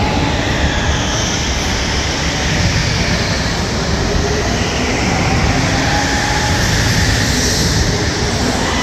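Go-karts running around a track: steady motor and tyre noise with faint whining tones that rise and fall a little.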